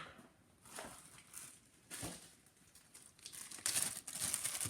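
Handling noise at a workbench: a few light knocks, then from about three and a half seconds in a stretch of crinkly rustling.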